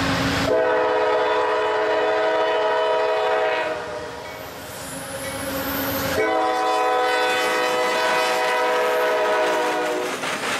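CSX freight locomotive's air horn sounding two long, chord-like blasts as the train approaches: the first from about half a second in to almost four seconds, the second from about six seconds to ten. The locomotives rumble past near the end.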